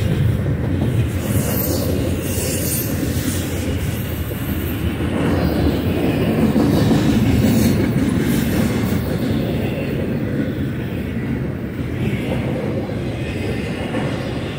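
Double-stack intermodal well cars loaded with shipping containers rolling past, a steady rumble of steel wheels on the rails.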